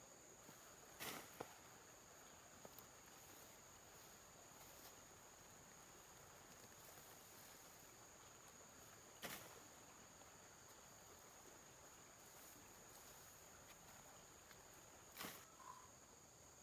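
Near silence: a faint, steady, high-pitched insect drone, with three brief knocks spaced through it, about a second in, about nine seconds in and near the end.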